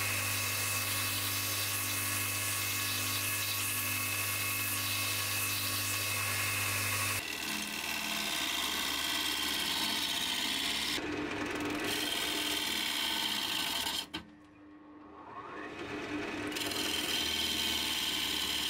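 Belt grinder running steadily as a bowl gouge is sharpened against the belt. About seven seconds in this gives way to a wood lathe spinning a cherry bowl blank with the gouge cutting into it; the cutting drops out for about a second past the middle and then picks up again.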